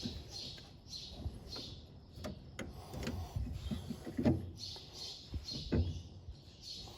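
A small bird chirping over and over, about two short high chirps a second, with a few sharp clicks and dull knocks of parts being handled.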